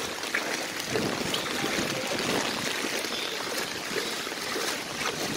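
Fast-moving typhoon floodwater rushing and splashing, a steady noisy wash with many small splashes.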